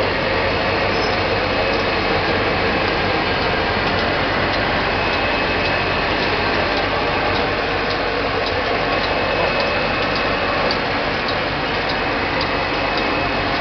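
Ice lolly filling and sealing machine running with a steady mechanical noise and faint, regularly repeating clicks.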